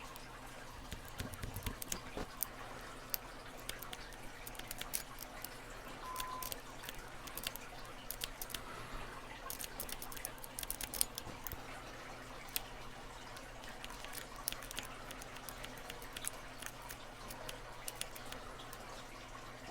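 Snake rake raking the pin stack of a Master Lock M530 padlock, with a tension wrench in the bottom of the keyway: faint, irregular small metallic clicks and scrapes as the pins are worked.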